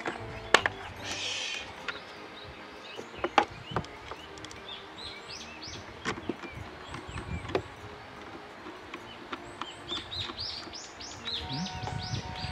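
Birds chirping in runs of quick, high, falling notes, thickest near the end. Over them come a few sharp clicks and knocks of metal and tools being handled as a scooter battery is fitted, the loudest about half a second in and another pair a little after 3 seconds.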